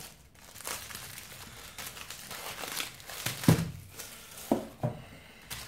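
Clear plastic shrink wrap being peeled off a card box and crumpled in the hands, crinkling throughout, with a few short knocks of boxes set down on the table, the loudest about three and a half seconds in.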